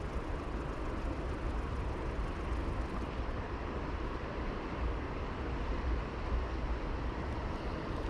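Steady rushing of a river's current, with a low, uneven rumble of wind on the microphone.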